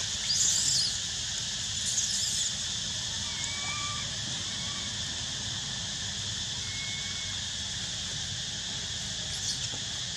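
Steady high-pitched insect chorus, with two short high bursts about half a second and two seconds in, and a few faint short bird whistles.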